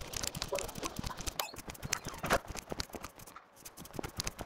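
Footsteps on a hard floor mixed with irregular clicking and rustling from handling a handheld camera while walking.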